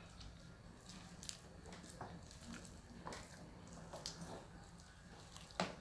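Faint handling sounds: a few soft clicks and taps, roughly one a second, with a sharper click near the end.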